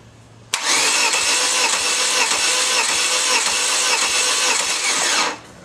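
Starter motor cranking a 2001 Chevy Cavalier's 2.2-litre four-cylinder engine with even, rhythmic compression pulses for about five seconds, never firing because ignition and fuel are disabled for a compression test. It starts about half a second in and stops near the end.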